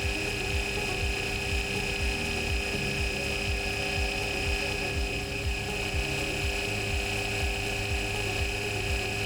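Small bench lathe running steadily under its motor, with a constant high whine over a low, uneven rumble.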